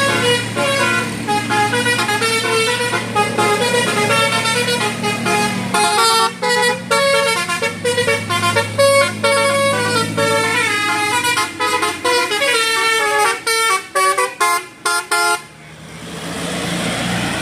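Tour bus's Basuri telolet musical horn playing a fast melody of short stepped notes over the low hum of the engine, stopping abruptly near the end and leaving a steady rushing noise.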